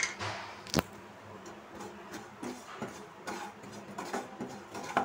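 Spatula stirring and scraping ground coriander and pistachios around a nonstick kadai, a light scratchy shuffling with scattered ticks. A single sharp knock about a second in, the loudest sound, and a short click near the end.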